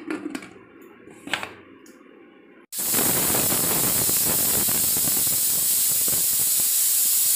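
Pressure cooker whistle: steam jets out under the weight valve in a loud, steady hiss for about five seconds, starting suddenly about three seconds in. This is the first whistle, the sign that the cooker has come up to pressure. A few light clicks come before it.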